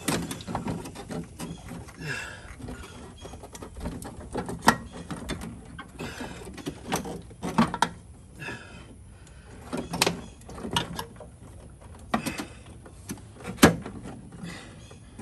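Scattered clicks and knocks as parts are handled in a car's engine bay while the brake booster is worked out, with a few sharper knocks about 5, 10 and 13.5 seconds in.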